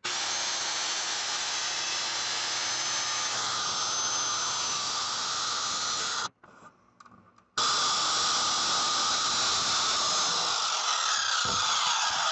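Power saw cutting through a wooden board with a steady whirring hiss. It breaks off sharply about six seconds in and picks up again a second later.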